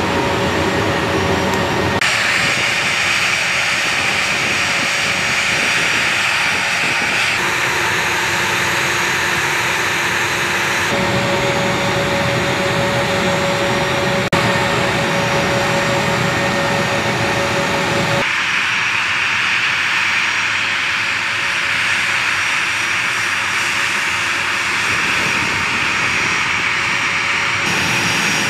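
A-10 Thunderbolt II's TF34 turbofan engines running on the ramp: a loud, steady jet rush with whining tones. The sound shifts suddenly several times.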